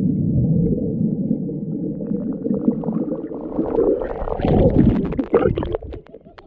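Muffled underwater rumble and gurgling of bubbles and churning pool water around a swimmer who has plunged in, heard through a submerged waterproof camera. About four and a half seconds in, sharper splashes and clicks come through as the camera nears the surface.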